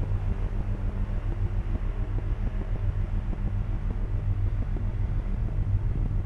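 Dark low drone of film score music: a steady deep hum and rumble with a fast fluttering pulse.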